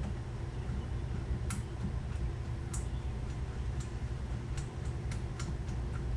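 Light, irregularly spaced clicks and ticks from small hand tools and bolts on metal, about eight of them, over a steady low background hum.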